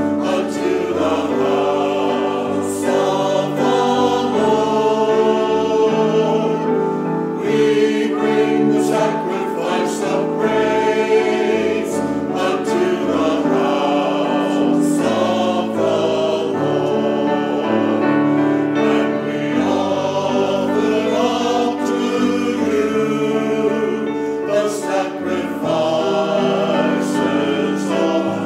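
Church choir of men and women singing a choral anthem together, sustained chords without a break.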